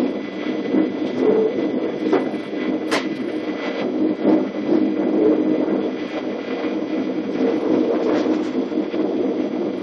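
DB Class 420 S-Bahn electric multiple unit heard from inside the driver's cab while running: a steady running hum with irregular clacks as the wheels cross points and rail joints, the sharpest about three seconds in.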